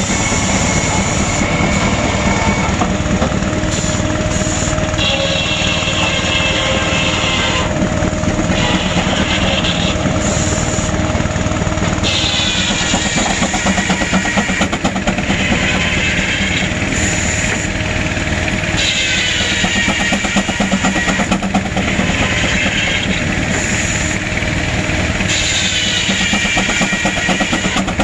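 Big Advance-Rumely steam traction engine working hard under load with a fast, steady beat, belt-driving a circular sawmill. The saw whines through hardwood in repeated cuts of two to three seconds each.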